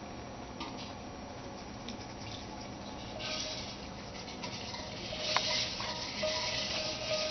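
A hamster scrabbling and running on a plastic surface, its claws making a scratchy rustle with small clicks that grows louder about three seconds in. A steady musical tone comes in over it near the end.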